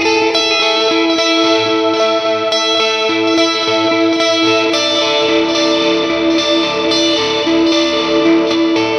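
Electric guitar played through a Valeton GP200 multi-effects processor: sustained notes and chords with a light blues overdrive, delay and ambient reverb.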